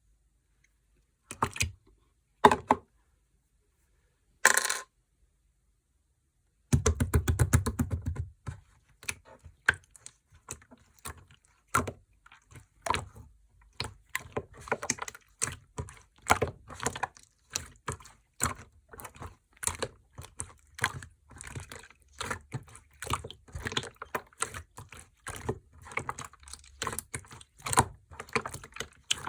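Clear slime being pressed and squished by hand, making quick clicking and popping sounds. A few separate knocks come in the first five seconds. About seven seconds in a dense run of rapid clicks starts, and irregular clicks and pops go on after it.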